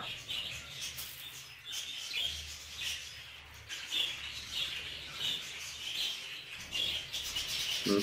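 Budgerigars chirping: a series of short, high chirps at irregular intervals.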